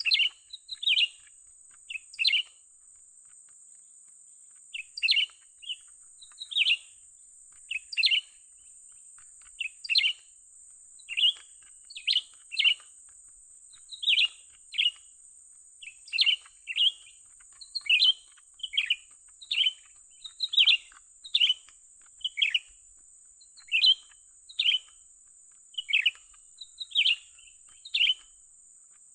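Cucak ranting calling: short, sharp chirps repeated about once a second, often in quick pairs, over a steady high-pitched hiss.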